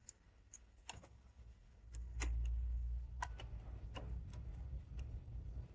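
Scattered light clicks and taps of connectors and small parts being handled, with a low rumble from about two to four seconds in.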